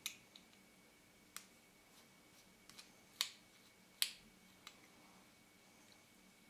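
A few faint, irregular sharp clicks of a small screwdriver and tiny screws as the screws holding the aperture ring's retaining plate are taken out of an AF Nikkor 50mm f/1.4D lens, the loudest two about three and four seconds in.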